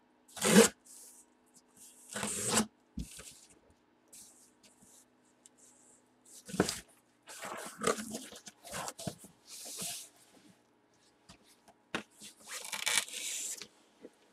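Cardboard box being opened and handled by hand: a string of separate rustles and scrapes as the tape gives, the flaps are pulled back and the boxed helmet inside is moved. The sharpest, loudest sound comes about half a second in.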